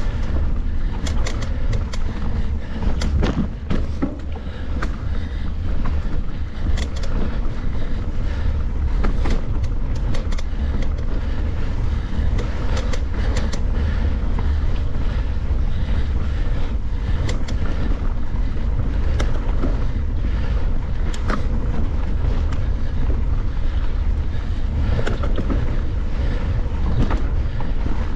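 Heavy wind rumble on the microphone of a camera riding along on a mountain bike, with frequent sharp clicks and rattles from the bike over rough trail.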